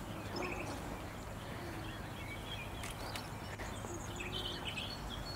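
Quiet outdoor ambience: a few short bird chirps now and then over a low steady background hum.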